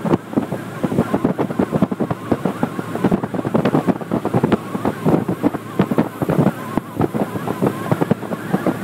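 A small motorboat under way: its motor runs steadily while wind buffets the microphone in rapid, irregular thumps.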